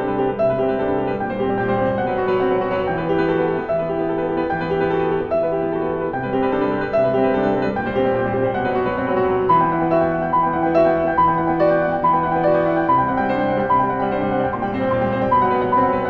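Steinway Model D concert grand piano played solo: a repetitive piece of held low bass notes under a repeating figure in the middle register. About halfway through, a higher line of notes comes in above it.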